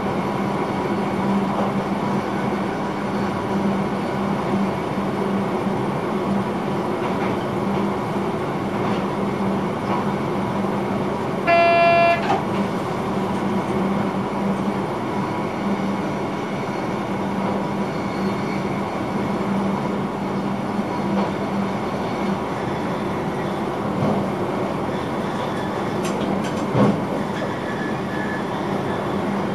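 Electric train's steady running noise heard from inside the driver's cab, with a constant low hum. About twelve seconds in, the train horn gives one short toot. A single knock near the end.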